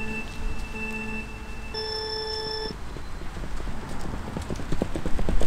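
Electronic race-start countdown: two short beeps, then a longer, higher beep about two seconds in as the start signal. Two sprinters' running footsteps on a rubber track follow, quick and growing louder near the end as they come closer.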